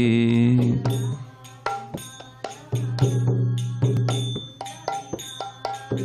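Mridanga, the two-headed hand drum, played in a quick pattern of sharp hand strokes, some dry and some ringing, between lines of a sung mantra; the held end of the last sung note fades out in the first second.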